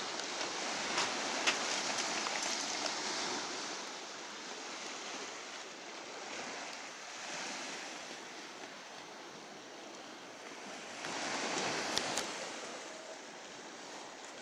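Small sea waves washing onto a pebble beach, a steady hiss that swells and eases, louder at first and again near the end, with a few faint ticks.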